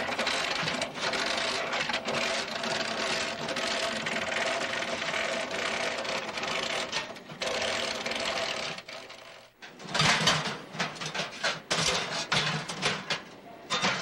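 A long metal chain rattling steadily as it is pulled out over the rim of a metal trash can. It stops about nine and a half seconds in, and a run of sharp, uneven knocks follows.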